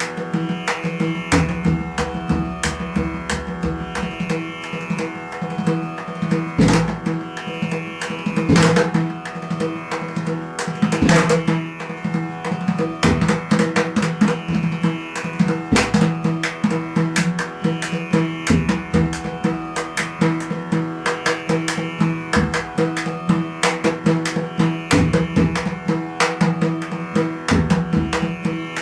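Indian-style music: a steady drone under fast, dense drumming that runs on without a break.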